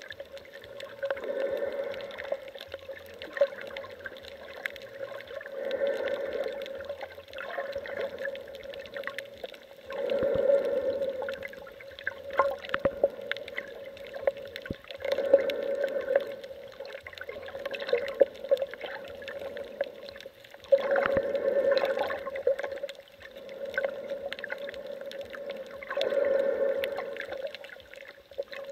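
Underwater sound of a snorkeler breathing through the snorkel: a slow, even whooshing swell about every five seconds, over a steady hum with scattered small clicks.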